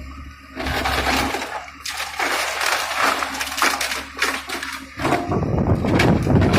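Warehouse structure breaking and crashing as a Komatsu PC130F excavator tears it down: many cracks and impacts over the steady low hum of the excavator's engine. The crashing grows heavier about five seconds in.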